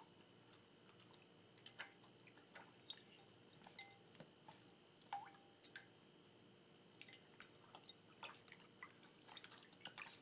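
A Pomeranian puppy pawing in the water of a ceramic bowl: faint, irregular small splashes and drips, roughly one or two a second.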